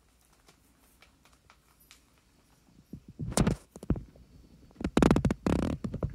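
Kittens play-fighting: faint scratchy clicks, then a burst of thumps and scuffling about three seconds in, and a longer one near the end.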